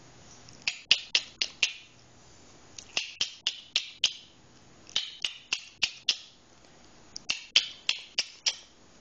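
Runs of four or five sharp, quick clicks, repeated every second or so, a person clicking to call puppies over.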